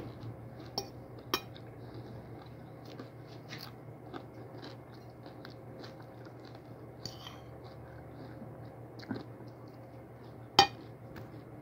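Close-up chewing and crunching of fried dried fish and rice, with small irregular clicks and a sharp clink of the fork near the end, the loudest sound. A steady low hum runs beneath.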